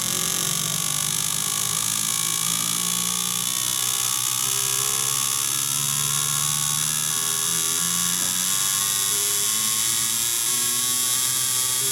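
Fuel injector test bench running the Peugeot 206 SW Escapade 1.4's four injectors through their flow and equalization test. The injectors pulse rapidly in a steady electric buzz over the hum of the bench's pump.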